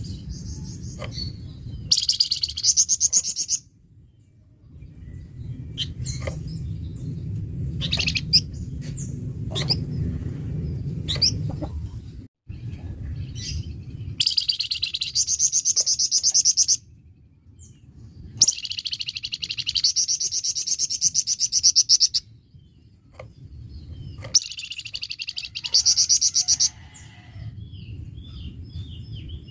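Flamboyan songbird singing in harsh, rapid-fire bursts of fast repeated notes, four bursts of two to three seconds each, with short scattered chirps between them. A low rumbling background noise comes and goes underneath.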